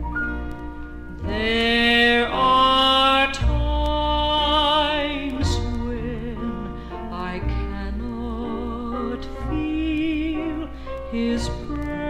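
Southern gospel music: a singer holding long, slow notes with wide vibrato over instrumental accompaniment with steady low bass notes.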